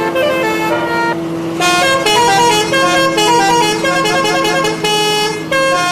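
Indonesian bus 'telolet' horn, a multi-tone air horn playing a quick jingle of changing notes, several sounding at once, with a short break about a second in. A steady low hum runs underneath.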